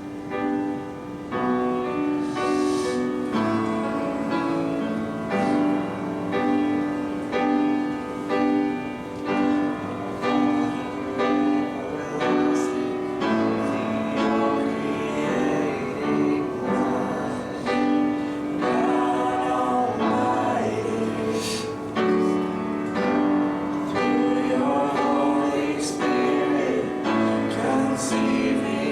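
Worship song with keyboard chords and singing voices, the chords changing every second or two.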